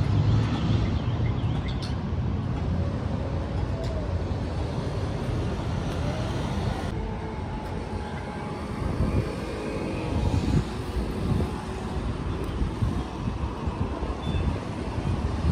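Street traffic at a city intersection: cars and mopeds driving through with a steady low rumble of engines and tyres.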